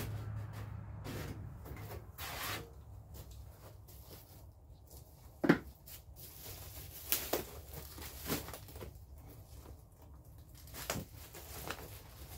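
Scattered light knocks, taps and rustles of hands working at a metal greenhouse frame while a self-adhesive Velcro strip is pressed into place. One sharper knock comes about five and a half seconds in.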